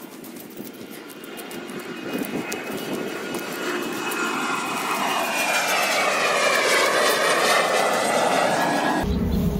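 Jet airplane flying overhead, its noise building steadily to a loud, sweeping whine and rush that rises and falls in pitch as it passes. Near the end the sound changes abruptly to a deeper rumble.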